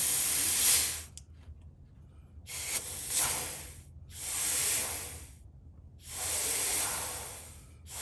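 Compressed air hissing in bursts from a shop air hose fed to a Williams pneumatic throttle actuator on a Detroit Diesel 6V92TA governor. A steady hiss stops about a second in, then comes three more times, each swelling and fading over about a second and a half. The actuator is being cycled with air to check how it tracks and returns, to trace a slow throttle return.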